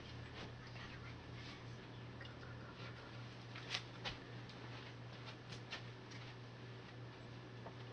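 Quiet room tone: a steady low hum with scattered faint clicks and soft rustles, the clearest pair a little under four seconds in.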